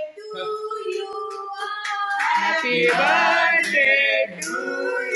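Singing: a song sung by voices with long held, gliding notes.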